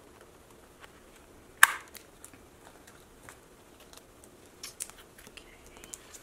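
Clear plastic binder pocket pages and photocards being handled: light scattered taps and rustles, with one sharper plastic click about one and a half seconds in and a few more taps near the end.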